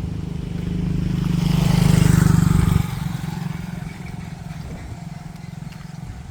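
A motor vehicle passing close by on the road, its engine getting louder to a peak about two seconds in, then dropping away sharply and fading as it goes on.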